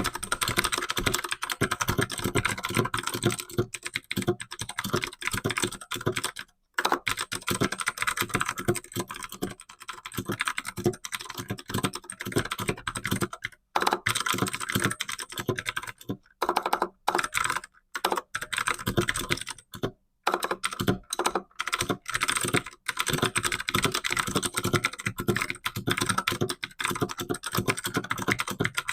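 Fast, continuous typing on a computer keyboard at about 75-90 words per minute, a rapid stream of key clicks with a few brief pauses.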